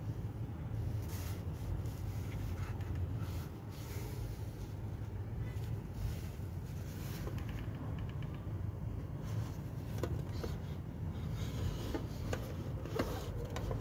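A steady low background rumble, with a few light clicks and taps from toys being handled about ten to thirteen seconds in.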